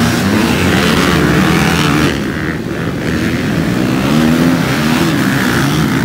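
Several motocross dirt bike engines revving together, their overlapping pitches rising and falling as the riders work the throttle.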